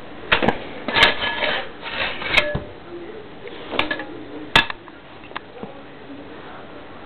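Handling noise from a sheathed sword being moved on a cloth: a handful of sharp clicks and knocks with rubbing and rustling between them. The loudest knock comes about four and a half seconds in, and the last few seconds are quieter.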